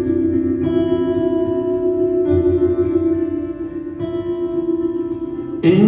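Acoustic guitar playing slow, ringing chords with heavy reverb, a new chord struck roughly every second and a half to two seconds. A man's singing voice comes in right at the end.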